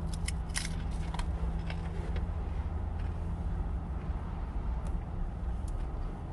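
Low steady rumble of a car, with a few light clicks and taps in the first two seconds and two more near the end.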